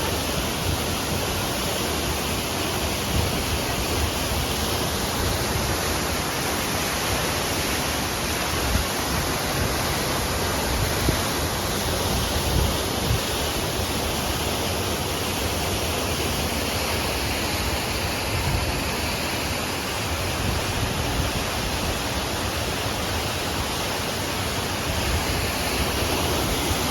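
Waterfall pouring, a steady even rush of falling water with no break.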